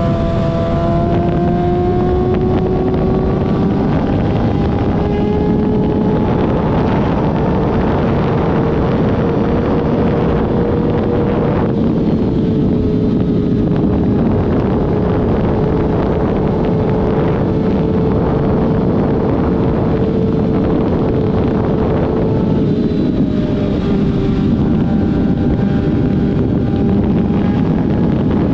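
A vehicle engine running steadily at cruising speed, its hum slowly rising in pitch and dipping slightly a little before halfway and again later. Heavy wind rushes over the microphone throughout.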